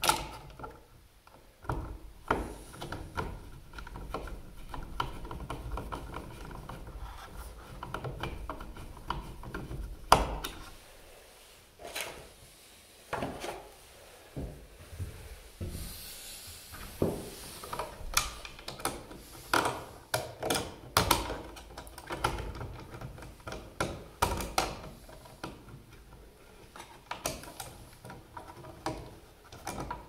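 Hand screwdriver turning the mounting screws of a 20 amp GFCI outlet into a plastic electrical box: repeated scraping and rubbing, with scattered clicks and knocks and one sharp knock about ten seconds in.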